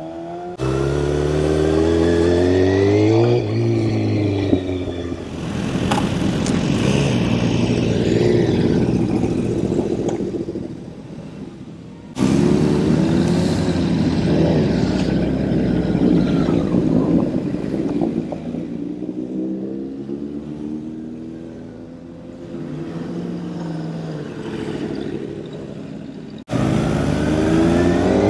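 Kawasaki Ninja ZX-6R's inline-four engine accelerating hard, its pitch rising again and again as it revs up through the gears. The level jumps suddenly a few times.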